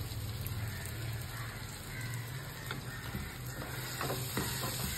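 Onion, ginger and green chillies sizzling in oil in a pan, stirred with a spatula that scrapes and clicks against the pan a few times.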